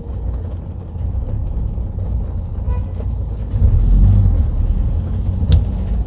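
Low, steady rumble of a car's engine and road noise heard from inside the cabin in slow-moving traffic, swelling briefly a little past the middle.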